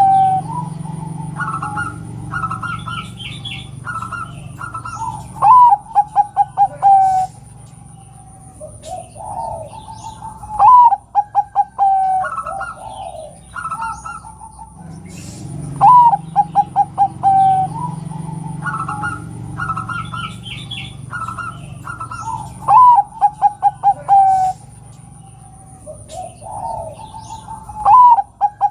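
Zebra dove (perkutut) cooing: about five rolling phrases, each a rising note followed by a quick run of short staccato coos. Brief higher chirps come between them.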